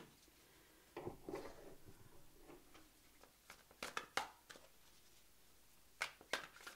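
Tarot cards being handled and laid down on a table: a scattered series of soft taps and rustles.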